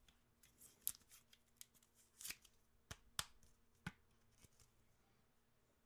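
Trading cards and clear rigid plastic card holders being handled on a tabletop: about ten faint, scattered clicks and taps over the first four seconds or so.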